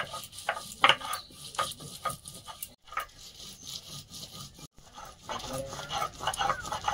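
Stone roller scraping back and forth on a stone grinding slab (shil-nora) as ginger, cumin and dried chillies are ground into a wet spice paste: rough, irregular rubbing strokes with stone-on-stone knocks.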